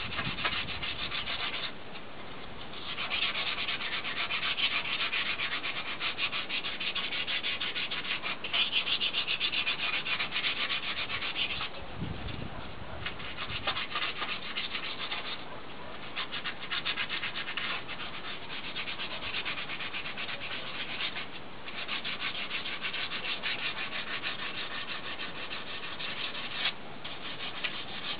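Sandpaper rubbed by hand back and forth over the painted alloy spokes of a car wheel, scuffing the old orange paint before repainting. Rapid rasping strokes in long bouts, broken by several short pauses.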